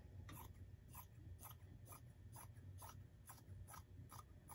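Sewing scissors snipping through plush cuddle fabric: a faint run of short cuts, about two to three a second.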